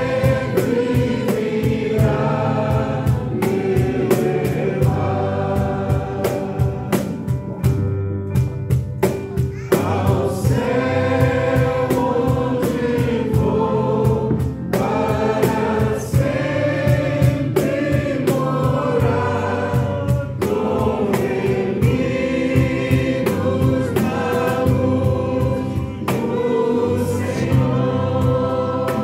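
Live worship band performing a hymn in Portuguese: a group of male and female singers over acoustic guitar, electric bass, keyboard and cajón keeping a steady beat. Near the end it moves from a verse into the chorus.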